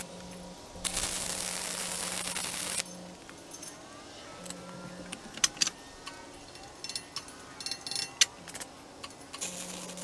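Arc welding on a steel sawmill saw head: a steady crackling weld bead about two seconds long near the start, then a few light metallic clinks and ticks, and a second bead striking up just before the end.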